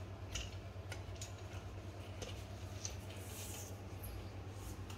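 Faint scattered clicks and light rattles of an aluminium folding bike being unfolded by hand, its handlebar stem and frame knocking softly, with a brief soft rubbing hiss about three seconds in, over a steady low hum.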